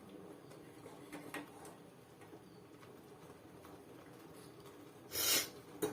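Jaggery-and-herb chutney cooking in a pan with faint scattered ticks and pops. About five seconds in, a brief loud metal scrape of a spoon against the pan.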